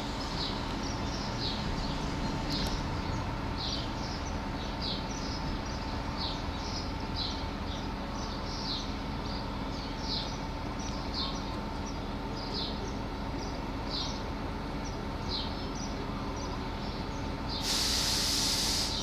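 CSR SDA4 diesel-electric locomotive idling with a steady hum, while a bird chirps repeatedly in short high notes about every second. Near the end a loud hiss of air lasts about a second.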